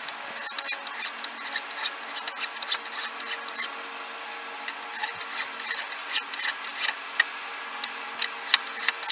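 A hand file rasping across a hickory knife-handle scale in quick back-and-forth strokes, about three to four a second, shaping the wood down flush with the metal tang. The strokes pause briefly near the middle, then resume.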